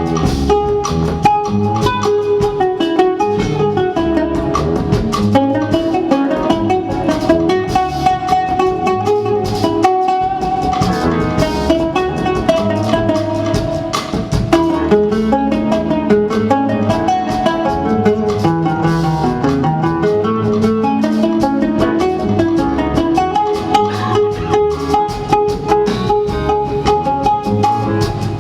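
Instrumental music led by a plucked string instrument playing quick runs of notes.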